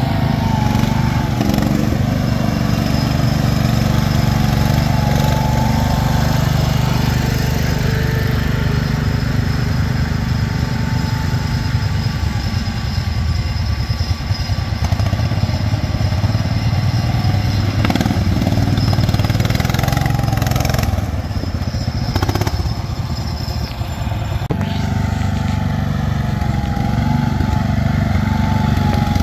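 Garden tractor engine running steadily under throttle as the tractor drives along a muddy trail. Its note drops and quietens about three-quarters of the way through, then picks back up sharply, with a few short knocks just before.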